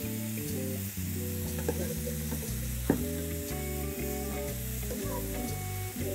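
Background music over the sizzle of food frying in oil in a pan, with one sharp knock about three seconds in.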